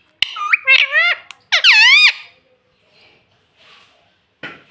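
Pet rose-ringed parakeet giving a quick run of high, warbling calls with sliding pitch for about two seconds, then a short harsh squawk near the end.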